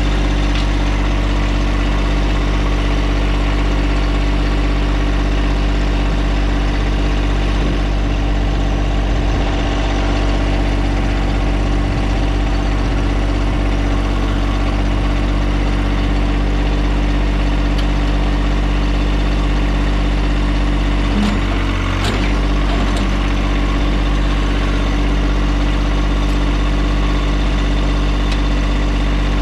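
John Deere compact tractor's diesel engine idling steadily at close range, with a brief knock or two about three-quarters of the way through.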